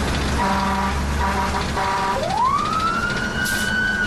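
Fire engine warning devices heard from inside the cab: three short horn blasts, then the siren winding up quickly in pitch and holding a steady high tone. The truck's engine runs underneath.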